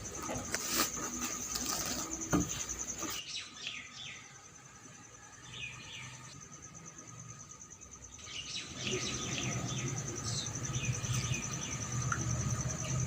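An insect trilling steadily at a high pitch, with birds chirping in short falling calls. A few knocks and clatters in the first three seconds, and a low hum comes in about nine seconds in.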